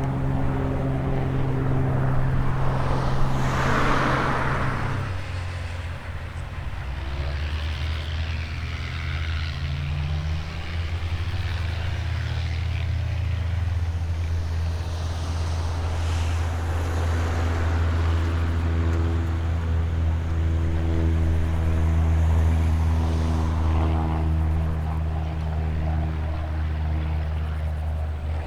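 Propeller-driven light aircraft engines running. One passes close about four seconds in, its tone dropping in pitch as it goes by, and then a steady engine drone continues.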